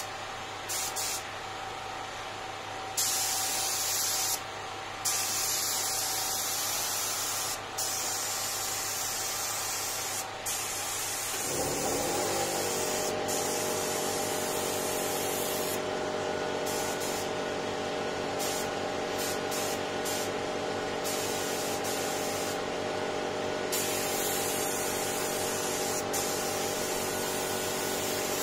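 Gravity-feed compressed-air spray gun hissing in bursts as the trigger is pulled and released, spraying a finish coat. About a third of the way in, a motor spins up with a short rising hum and then runs steadily underneath: the air compressor cutting in.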